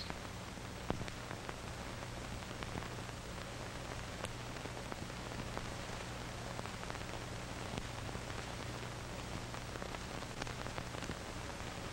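Steady hiss and a low hum from a worn old film print's soundtrack, with a few faint crackles.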